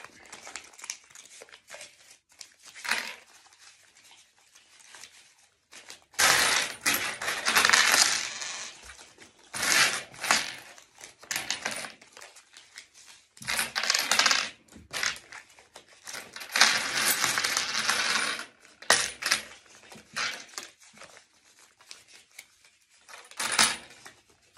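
Turkish lira coins clinking against each other on a wooden table as a heap is sorted and counted by hand, in several bursts of a second or two, with quieter rustling and shuffling between them.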